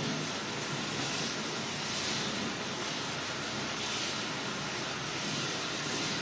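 Kitchen tap running steadily into a plastic sieve of bulgur in a steel sink as the grain is rinsed: an even hiss of water.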